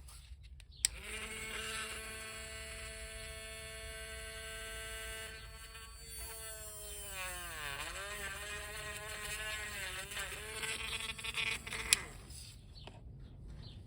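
Small electric drill whining as it pre-drills a hole in a piece of plastic. It starts about a second in, its pitch sags under load midway and recovers, and it stops shortly before the end.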